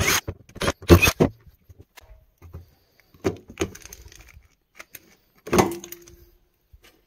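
Clicks and knocks of a hard plastic access cover being handled and lifted out of its recess in a van floor, with a short squeaky scrape a little past halfway.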